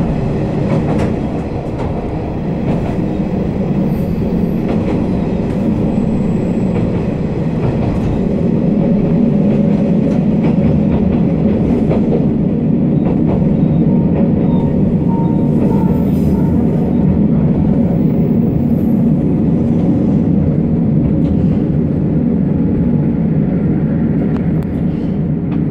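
Noto Railway NT200 diesel railcar running on the line, heard from inside the car: a steady engine drone mixed with wheel-on-rail noise, growing a little louder about a third of the way in.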